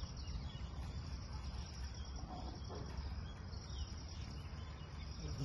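Insects chirring steadily in the grass over a low steady rumble.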